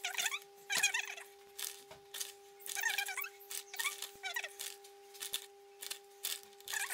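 Plastic bag of shredded cheese crinkling in short bursts as the cheese is shaken and spread over the dish, mixed with high, wavering squeaky chirps. A steady low hum runs underneath.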